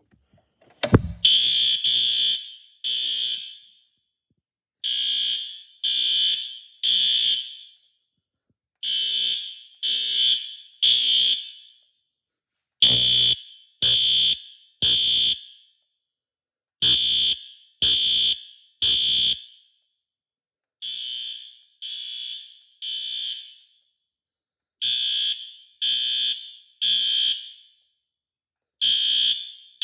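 System Sensor fire alarm horns sounding the temporal-three evacuation pattern: three loud buzzy blasts, a pause, then three again, over and over. It starts after a click about a second in.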